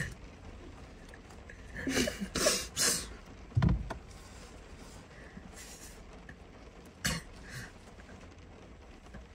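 Quiet room with a few short breathy mouth and throat noises from a person: three in quick succession about two seconds in, and one more about seven seconds in. A single low thump comes just after the third.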